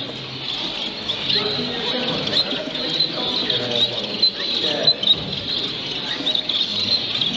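Many caged zebra finches and Bengalese finches calling with short, high chirps, over a murmur of people talking.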